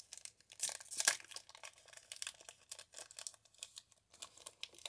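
Foil wrapper of a Pokémon trading-card booster pack crinkling as it is torn open by hand: a run of sharp crackles, loudest about a second in.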